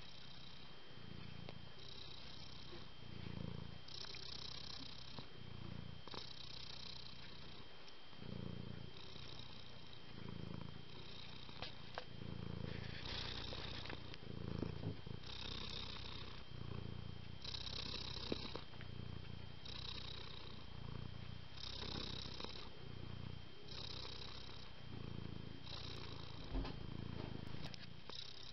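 Domestic cat purring steadily, the purr swelling and easing in a regular cycle about every two seconds as it breathes in and out.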